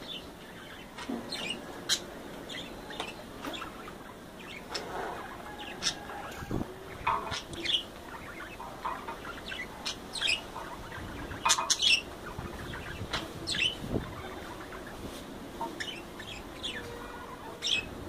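Budgerigars chirping and chattering in short, irregular calls, with a louder cluster of calls about two-thirds of the way through.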